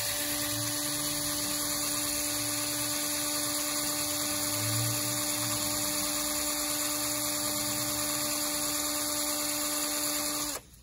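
Cordless drill running steadily with a whine as it drills into a RockShox Charger damper's compression assembly; the drill stops suddenly near the end.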